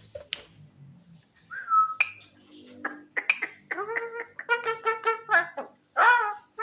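Javan myna giving whistled, voice-like calls: a rising note, then a fast run of repeated notes, and a loud call near the end.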